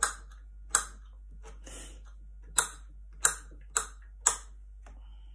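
Kitchen knife chopping diced bamboo shoots on a cutting board: about six sharp, separate knocks at an uneven pace, with one softer stroke between them.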